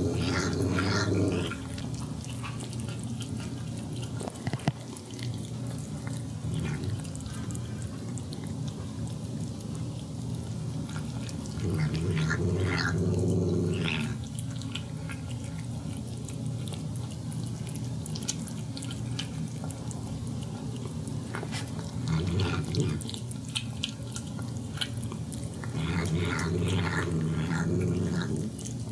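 A cat making 'yum yum'/'nom nom' vocalisations while eating wet food in gravy, in four bouts. Between the bouts come the small wet smacking and licking sounds of its eating.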